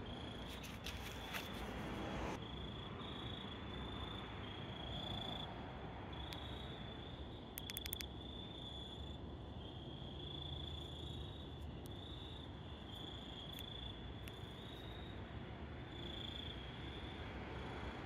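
Faint, steady chirring of crickets at night, with a few light clicks about a second in and again around eight seconds in.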